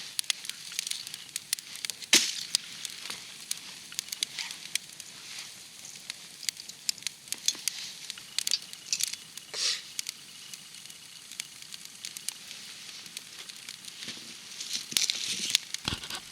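Wood campfire crackling, with irregular sharp pops and snaps over a faint hiss; a louder pop about two seconds in.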